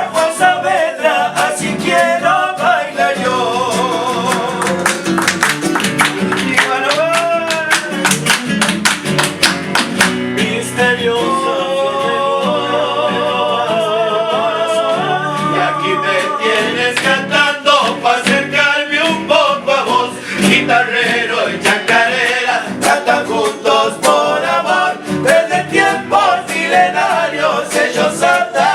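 Folk vocal group singing in harmony over strummed guitar accompaniment.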